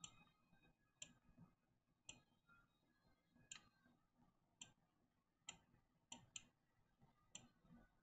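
Faint, sharp computer mouse clicks, about one a second and sometimes two close together, as text boxes are selected and dragged on screen.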